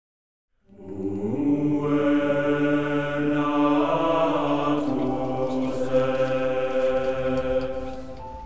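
Choir voices singing long held chords, starting about a second in, moving to a new chord around the middle and fading near the end.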